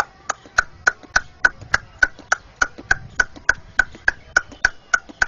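A man imitating a horse's hooves on a paved road with mouth clicks: a steady clip-clop of sharp clicks, about three to four a second.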